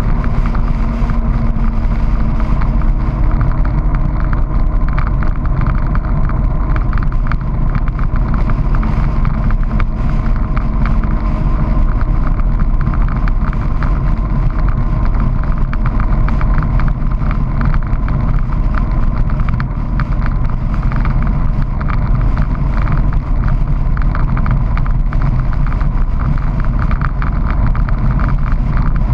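Honda PC800 Pacific Coast motorcycle's V-twin engine running at a steady cruise, with wind and road noise over it.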